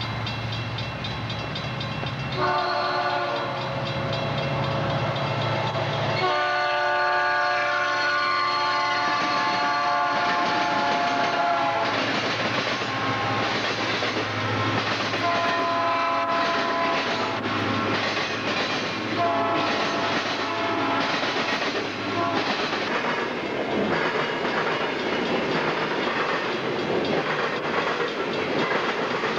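Freight train passing a grade crossing: the locomotive's horn sounds a short blast a few seconds in, a long blast of about six seconds, then two shorter ones, over a steady low engine hum. After the horn and hum fade, the boxcars roll by with a clickety-clack of wheels on the rail joints.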